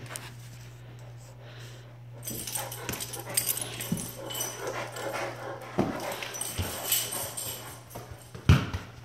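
A Great Dane running loose through a house, its paws and claws thudding and clicking on tile and wood floors, mixed with the footsteps and rustle of someone running after it. The knocks and scuffs start about two seconds in and come thick and irregular, with one loud thump near the end. A steady low hum runs underneath.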